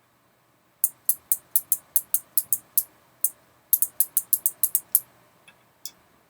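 Kailh mechanical keyboard switches pressed repeatedly, each press a sharp click. A run of about four clicks a second for two seconds, a single click, then a faster run of about seven, and one more click near the end.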